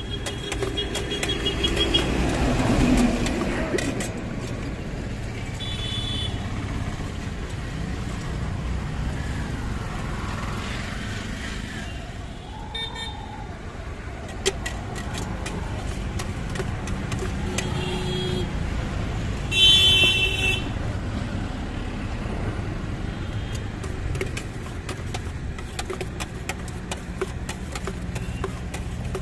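Road traffic passing with a steady rumble, and vehicle horns tooting several times, the loudest and longest blast about two-thirds of the way through. Scattered light clicks over the top.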